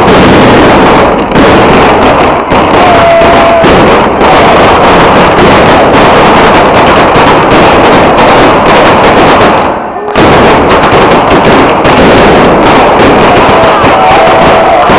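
Ground-level firecracker batteria going off in a rapid, unbroken chain of very loud bangs, with a short let-up about ten seconds in.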